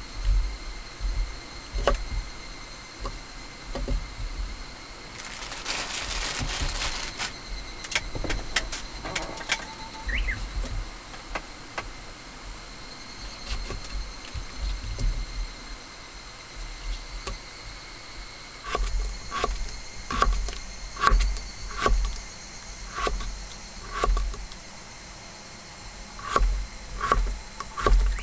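Kitchen knife slicing a cucumber on a wooden cutting board: knocks of the blade on the board, irregular at first, then a steady rhythm of about one and a half cuts a second through the second half. A brief rustling noise about six seconds in.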